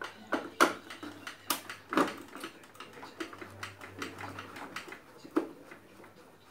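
Screwdriver turning the screws out of a Sony CRT TV's plastic back cover: a handful of sharp clicks and scrapes of the bit and the plastic, the loudest about half a second and two seconds in, over a low steady hum.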